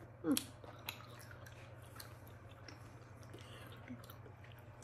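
Faint chewing of a firm, tough wine gum, with scattered small mouth clicks. A short voiced 'mm'-like sound comes just after the start.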